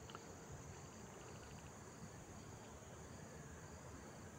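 Near silence with faint insect chirping: a short run of quick pulses about a second in, over a low steady hiss.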